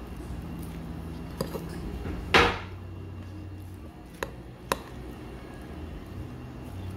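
Tableware during a meal: a few light clicks of utensils against dishes and one louder, short clatter about two and a half seconds in, over a low steady hum.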